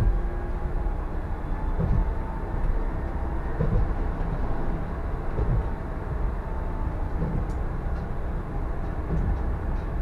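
Solaris Tramino S105p tram running at speed, heard from the driver's cab: a steady rumble of wheels on rail with a low thump about every two seconds.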